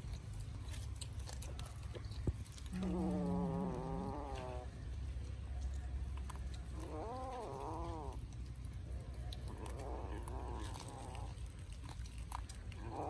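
Cats eating raw fish: a cat meows several times, a wavering call of a second or two about three seconds in, again around seven seconds and around ten seconds, over small clicks of chewing.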